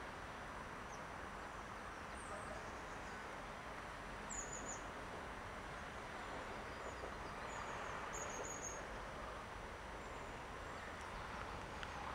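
Faint, steady outdoor background noise, with small birds giving short high chirps a few times.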